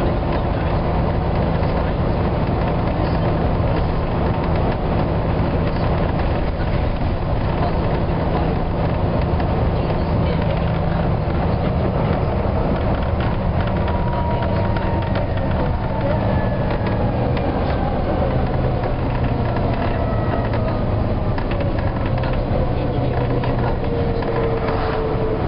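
Volvo B9TL double-decker bus's six-cylinder diesel and road noise heard from inside the saloon at motorway speed, a steady low drone. In the second half a thin whine slowly drops in pitch.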